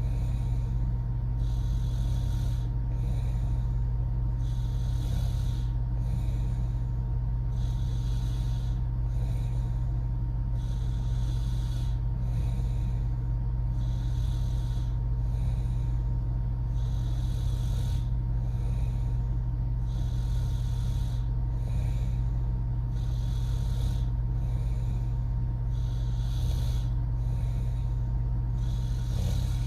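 A woman snoring in her sleep through an open mouth, her breaths repeating in a steady, regular rhythm. A steady low hum runs underneath.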